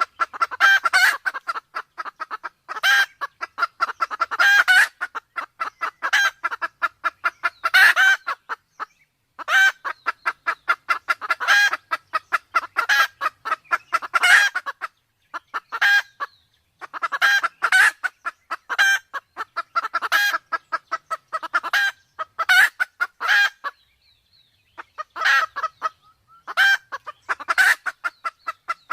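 Red junglefowl clucking in fast runs of short calls, several a second, with louder sharper notes about once a second and a few brief pauses.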